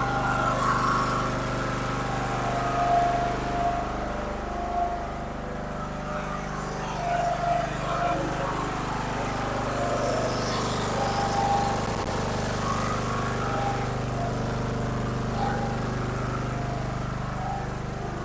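Craftsman LT1000 riding mower's Briggs & Stratton engine running steadily, warming up so its oil will drain easily.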